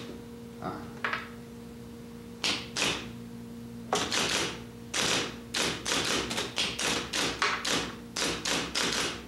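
Typewriter keys struck by hand: a few scattered strokes, then an uneven run of quicker keystrokes over the second half, over a faint steady hum.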